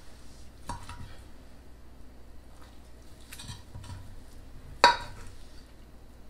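Metal spatula cutting down through the sliders and striking the bottom of a glass baking dish: a light click, a short scrape, then one sharp ringing clink near the end.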